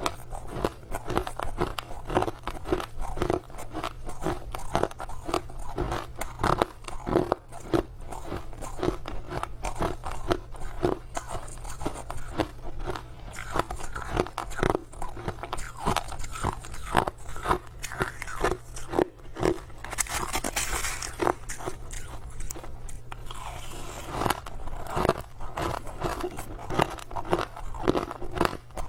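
Crushed ice being bitten and chewed close to the microphone: dense, irregular crunching throughout, with a short hissing rustle about two-thirds of the way through.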